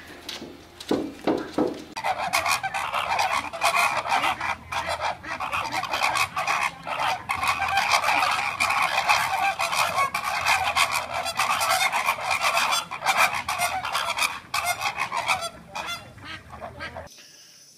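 A flock of flamingos honking, with many goose-like calls overlapping in a continuous din that stops abruptly about a second before the end.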